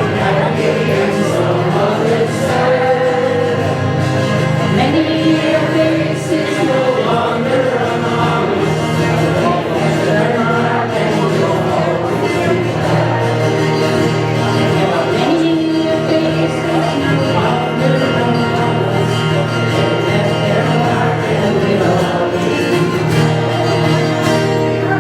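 Voices singing together with instrumental accompaniment, a church song.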